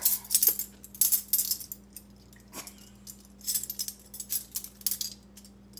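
Heavy metal measuring spoons clinking and jangling against each other on their ring as they are handled and a spoonful is levelled off, in a few short bursts of sharp metallic clinks.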